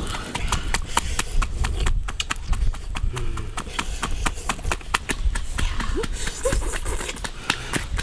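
Pestle pounding red chillies and garlic in a mortar: a quick, even run of knocks, about three or four a second.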